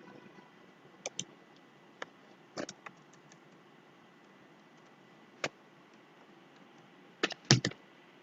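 Scattered computer keyboard clicks: a few single keystrokes spread out, then a louder quick cluster near the end, over a faint steady hiss.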